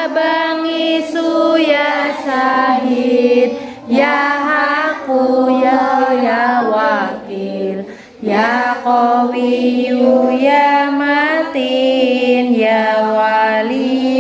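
Children's voices chanting a prayer (doa) together to a sing-song tune, in phrases broken by short pauses about four and eight seconds in.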